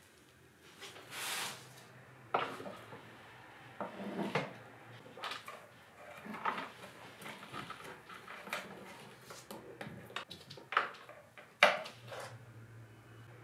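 Handling noise of cables and plastic plug connectors against wooden boards: irregular clicks, taps and short rustles, with a sharper knock about two seconds in and another near the end.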